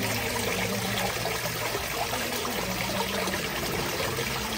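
Water splashing steadily down a small waterfall of stacked stones into a pond.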